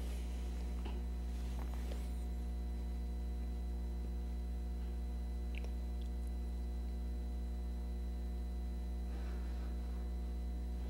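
Steady electrical mains hum with a stack of evenly spaced overtones, with a few faint light clicks or rustles near the start and about five seconds in.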